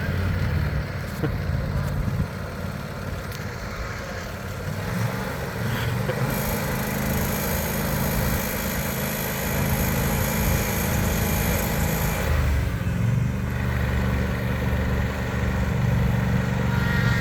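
Riding lawnmower's small engine running as the mower is driven along the street. The engine note shifts pitch a few times, and a hiss comes in for about six seconds in the middle.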